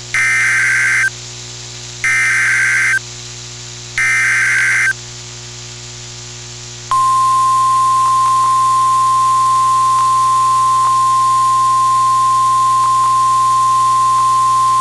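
NOAA Weather Radio Emergency Alert System activation: three one-second bursts of SAME header data tones, a harsh digital screech, then about seven seconds in the steady 1050 Hz warning alarm tone that announces a severe thunderstorm warning. A constant low electrical hum runs underneath.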